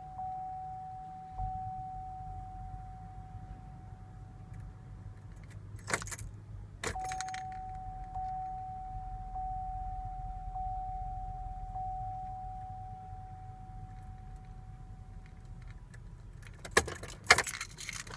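Keys jangling in short bursts, twice about six seconds in and again near the end, over a steady high electronic tone and a low hum.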